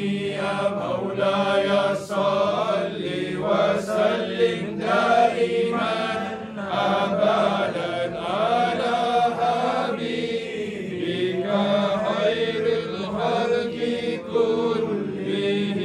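Men's voices chanting an Arabic devotional supplication in a slow melody of long, drawn-out held notes.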